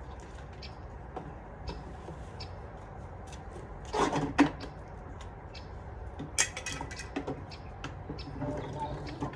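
Scattered knocks and clicks of plastic children's toys being handled, a playhouse door and a ride-on toy car, over a low wind rumble on the microphone. The loudest clatter comes about four seconds in, with another sharp knock about six and a half seconds in.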